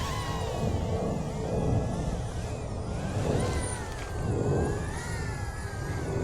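DJI Avata 2 FPV drone in flight, its propellers whining in several tones that rise and fall together as the throttle changes, over a low rumble.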